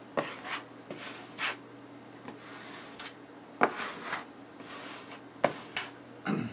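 Hand-held squeegee wiped firmly over a vinyl sticker's application tape on a flat board: a string of short, irregular scraping swipes with a few sharper ticks, pressing the wet-applied sticker down and pushing water and air bubbles out from under it.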